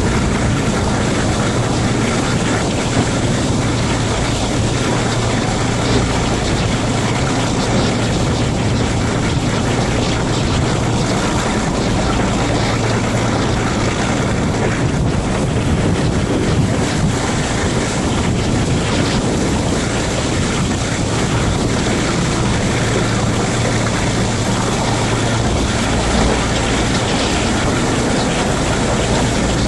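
Class 42 Warship diesel-hydraulic locomotive running under power on its only working engine, with a steady low drone, heard from an open carriage window with heavy wind rush on the microphone and wheel and rail noise.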